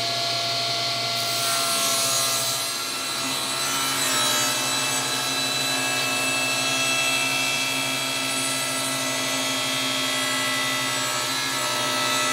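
Table saw running at steady speed while ripping a 2x4 lengthwise against the fence. The kerf is starting to close and pinch the back of the blade, from stress built up around two knots in the board: the situation that leads to kickback.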